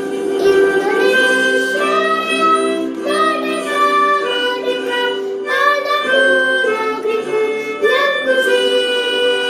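Music: a singer holding long, gliding sung notes over a steady sustained instrumental accompaniment. By the uploader's account, her voice is below its best because of a cough and cold.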